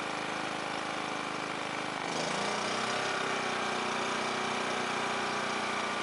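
2200-watt Quiet Power Technology inverter generator running in eco mode, its engine surging slightly about two seconds in as the RV air conditioner's fan comes on as a load, then running steady at the slightly higher speed.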